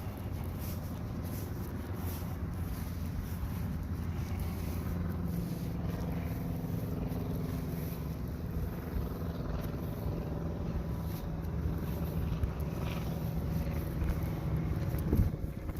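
A steady low engine-like hum, with a brief sharp knock near the end.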